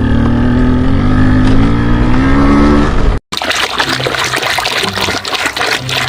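An engine running, its pitch dipping and then slowly climbing, which cuts off abruptly about three seconds in. After a brief gap comes a rough rushing noise over a low hum.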